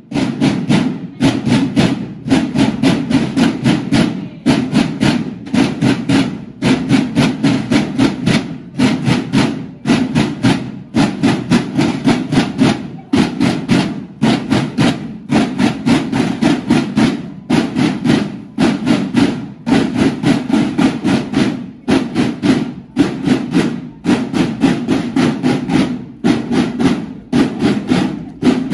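A school drum corps' marching snare drums playing a rapid marching cadence, many drums together. The pattern repeats about every two seconds, with a short break between phrases.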